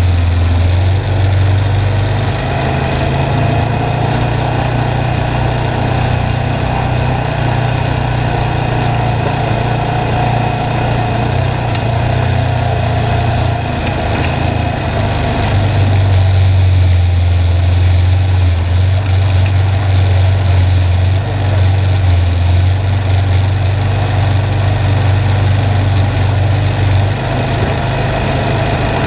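ATV engine running steadily while the quad rides a dirt trail, a close, loud low drone picked up by a camera mounted on the machine.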